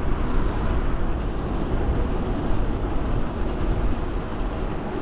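Wind buffeting the microphone while riding a moving e-bike: a steady, loud rushing with heavy low rumble.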